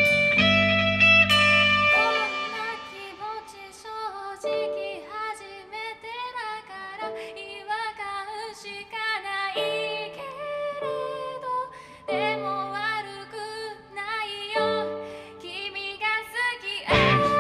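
Live rock band song: a loud electric guitar passage ends about two seconds in, and the band drops to a quiet section of a young woman singing over sparse held notes. The full band comes back in loud near the end.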